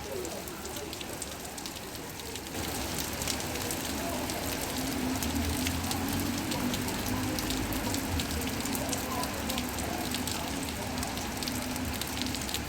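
Rain falling, a steady wash of many small drop ticks, getting louder about two and a half seconds in.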